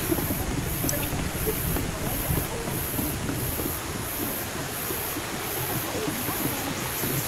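Forest ambience: a steady rushing hiss, with cicadas buzzing high above it in even pulses, about three every two seconds.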